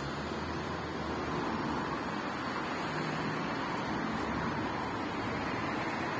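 Steady traffic noise from a city street: an even rush of passing cars.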